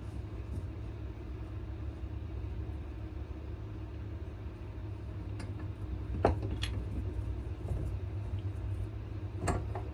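A steady low rumble, with a few sharp clicks and knocks from handling the knife in the metal vise: one about halfway through, two close together soon after, and one near the end.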